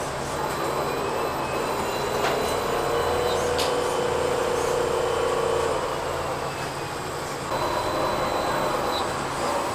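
Electric motors and gear trains of radio-controlled construction models whining as they run. A steadier tone holds through the middle, a different tone comes in later, and there are a few sharp clicks.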